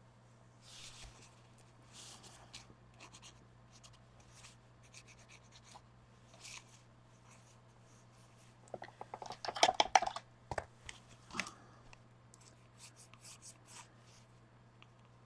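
Faint scratching and rubbing of hand work on a small paper art card, with a short burst of clattering and clicking about nine to ten seconds in. A steady low hum runs underneath.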